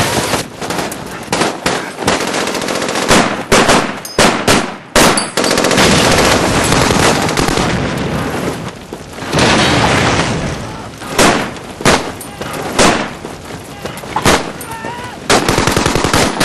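Heavy gunfire: a continuous rattle of machine-gun and rifle fire, with several louder single shots standing out.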